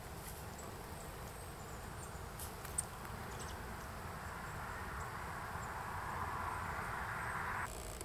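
Faint, very high, short calls of small birds over a steady outdoor hiss, with a few sharp ticks about two and a half seconds in. A rushing noise builds from about three seconds and cuts off suddenly near the end.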